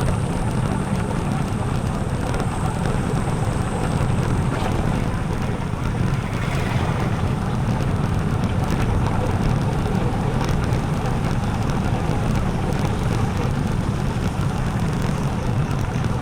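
Motorcycle riding along at a steady pace: the engine running evenly under a continuous noise of wind on the microphone.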